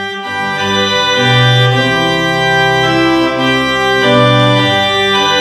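Organ music: held chords that change about once a second.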